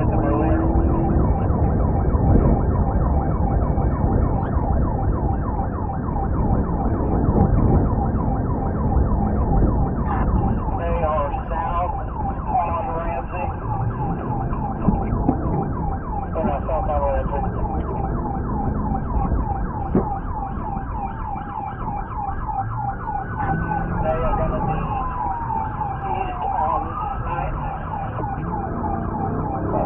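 Police car siren in a rapid repeating yelp, giving way near the end to slow rising-and-falling wail sweeps, over steady engine and road noise from a car driving at speed.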